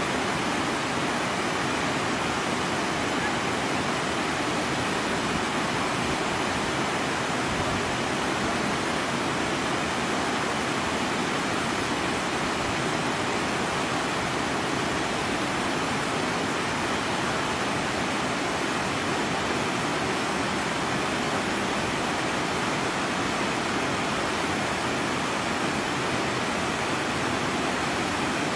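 Steady rush of flowing river water, an even hiss that does not change in level.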